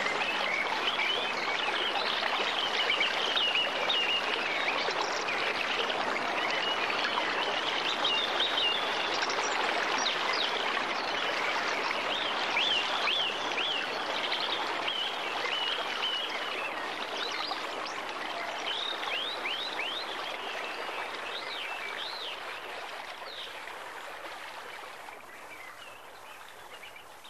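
A flowing stream with birds chirping over it, slowly fading out.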